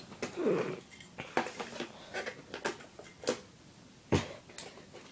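Scattered light clicks and taps of a toy truck and its plastic packaging being handled, about seven in all, the loudest a little past four seconds in.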